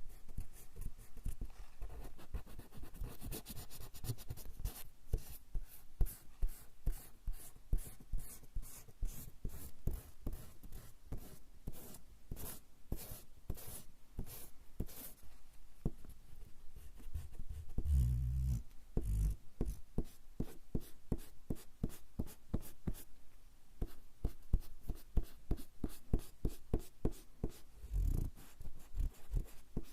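Rubber eraser scrubbing back and forth on coarse straw paper (warabanshi), in quick repeated strokes a few a second. A couple of low dull thuds come in, about two-thirds of the way in and again near the end.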